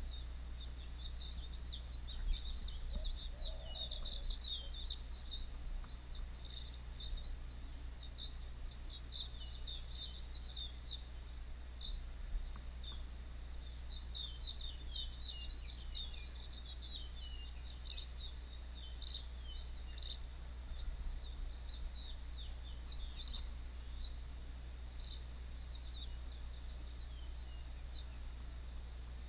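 Small birds chirping and twittering in many quick high notes, over a steady low hum.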